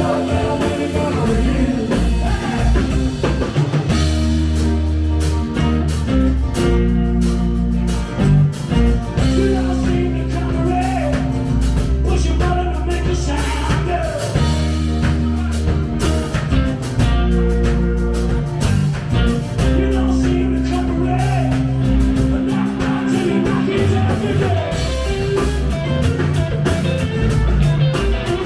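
Live rock band playing a song, with electric guitar, heavy bass notes, drum kit and a singing voice.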